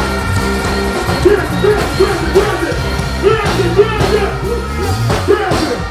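Dancehall riddim playing loudly over a stage sound system, with a man singing over it into a microphone from about halfway through.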